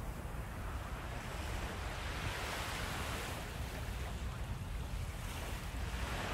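Surf washing onto a sandy beach, swelling and fading, strongest about two to three seconds in and again near the end, with wind rumbling on the microphone.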